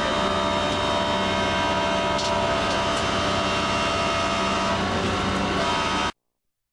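Fire engine running steadily with a constant hum, heard from inside its cab. It cuts off suddenly about six seconds in, when the recording ends.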